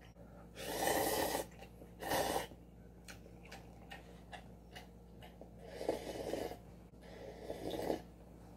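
Four noisy slurps of noodle broth drunk straight from a paper cup-noodle cup: a longer one about a second in, a short one soon after, and two more near the end, with faint clicks between them.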